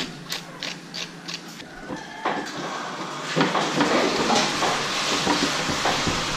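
Metal spoon scraping pineapple flesh into a bowl of mắm nêm dipping sauce in short strokes about three a second. After about two seconds this gives way to a denser, louder stretch of clinking and scraping as the sauce is stirred with chopsticks.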